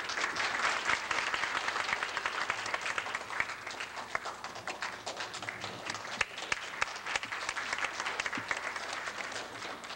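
Audience applauding, a dense patter of many hands clapping that stops abruptly near the end.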